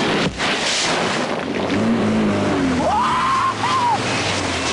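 Small 4x4 driving over loose dirt and gravel: engine and tyres under a steady gritty hiss. A rising and falling melody comes in about three seconds in.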